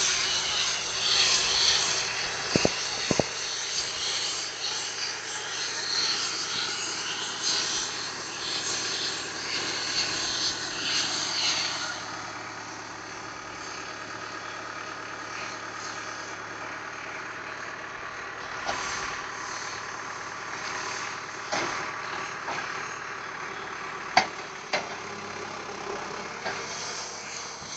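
Tractor engine running steadily while the McHale 991BE bale wrapper works a sorghum bale, loud for the first twelve seconds or so and then settling to a quieter hum. A few sharp knocks and clanks come through, two near the start and a couple near the end.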